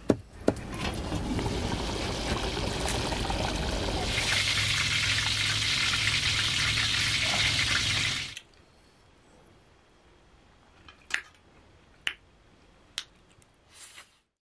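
Water pouring steadily for about eight seconds, growing louder and brighter about halfway through, then stopping suddenly. A few light knocks follow.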